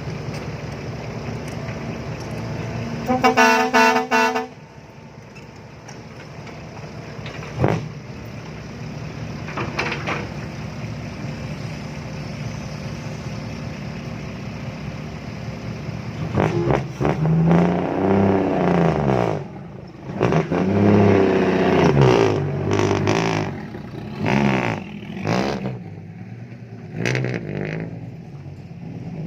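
A vehicle horn sounds once, for about a second, about three seconds in, over a steadily running truck engine. From about halfway through, the dump truck's engine revs up and down again and again in loud swells as the truck strains to climb out of mud.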